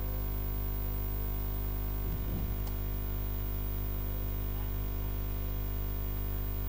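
Steady electrical hum with many evenly spaced overtones, typical of mains hum picked up by the recording microphone. A faint, brief low sound comes about two seconds in.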